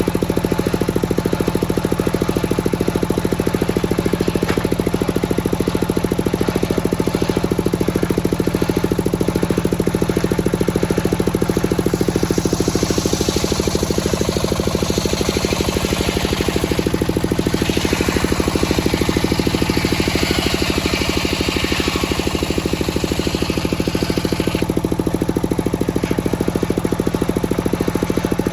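Engine of a circular sawmill running steadily with a fast even pulse. From about twelve seconds in until near the end, a harsher, higher noise joins it as the circular blade cuts through a teak log, then stops.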